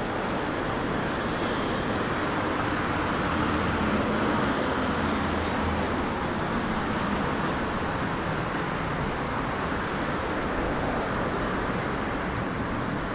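Steady city street traffic noise from cars and other vehicles passing, with one vehicle's low engine hum a little louder about four seconds in.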